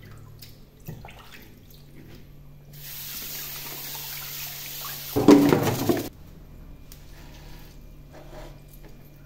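Kitchen tap running onto small fish in a plastic colander for about three and a half seconds, starting about three seconds in. The splashing grows louder for its last second before the water is shut off.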